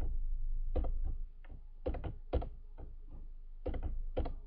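A series of sharp, irregularly spaced clicks from the controls of the computer being used to clear the on-screen ink and open the pen toolbar, over a faint steady low hum.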